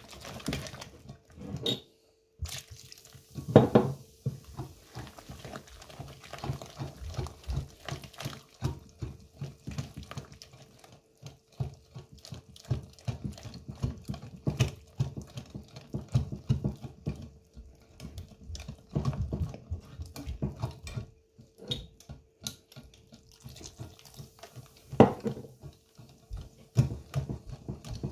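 Wire whisk beating wet beer batter in a glass dish: a fast, continuous run of wet slapping strokes, with the wires clicking against the glass and a couple of louder knocks on the dish.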